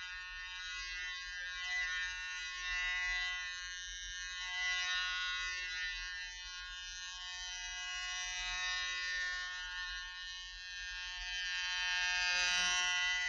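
Cartoon buzzing sound effect: one steady buzz, rich in overtones, wavering a little and swelling near the end.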